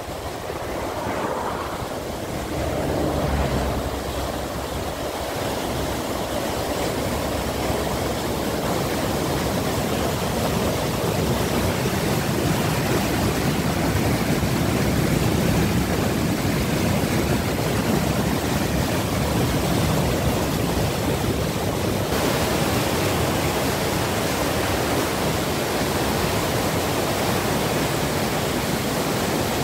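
Muddy floodwater rushing and churning in rapids after heavy rain, a steady dense roar of running water that turns hissier about two-thirds of the way through.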